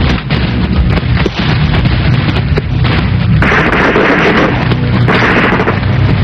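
Battle-scene gunfire, with many sharp shots and two longer, louder blasts about three and a half and five seconds in, over a background music score.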